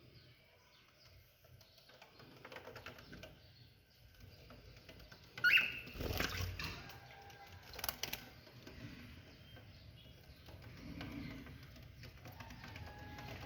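A bird gives a short rising call about five and a half seconds in, followed by a few knocks and rustling.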